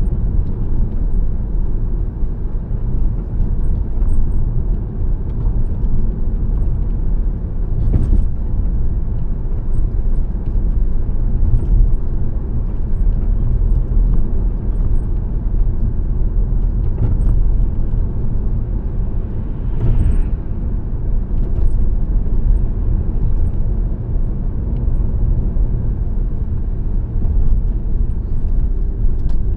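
A car driving on the road: a steady low rumble of tyres and engine, with a brief knock about eight seconds in.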